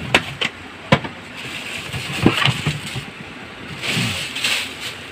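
Gloved hands rummaging through a plastic bin: several sharp knocks and clatters of plastic against plastic, the loudest about a second in, with rustling paper in between.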